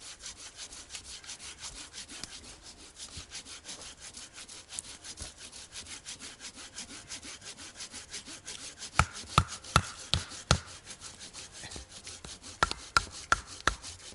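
Hand saw cutting through firewood in quick, regular strokes, about four a second. In the second half two runs of sharp, loud wooden knocks take over, as wood is chopped for the campfire.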